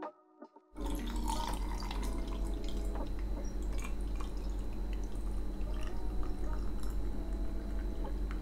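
Citrus juice poured from a glass jug over ice into a glass mug, trickling with small clicks, starting about a second in over a steady low hum.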